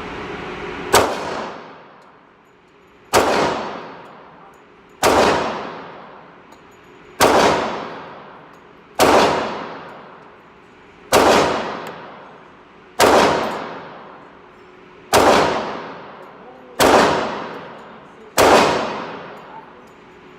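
Glock 21 .45 ACP pistol firing ten single shots, about two seconds apart, each shot followed by a long echoing decay.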